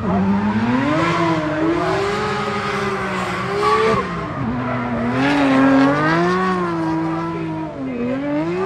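Drift car engine revving up and down as the throttle is worked, with tyres squealing. The engine pitch drops sharply about four seconds in, then climbs again.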